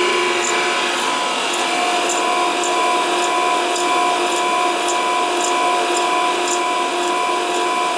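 Grinding wheel grinding a part turning in a Suburban Tool spin jig, a steady whine with several held tones and a light tick about twice a second. The cut is slow and the work is warming up.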